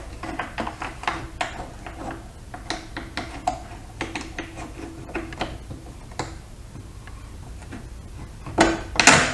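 Light, irregular metallic clicks and ticks as a bolt is worked and slid out of the motorcycle fuel tank's lower mount. The clicks thin out after about six seconds, and two louder metal knocks come near the end.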